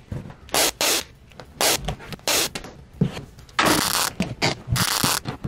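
Duct tape being pulled off the roll in a string of short rasping rips and pressed down onto cardboard boxes, about seven pulls with a longer one about two-thirds of the way through.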